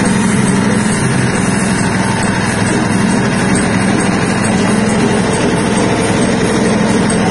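Stainless soybean splitting and dehulling machine running steadily under its motor, cracking beans and discharging them through its chute. It is a continuous loud mechanical drone that stays unchanged throughout.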